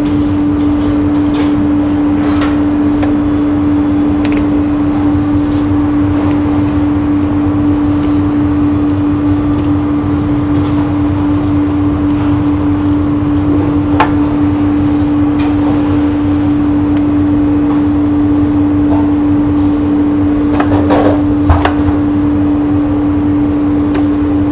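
Steady, loud machine hum from commercial kitchen equipment, one constant low tone over a rumble. There is a sharp tick midway and a few light knocks near the end as the lamb is worked with a knife on the cutting board.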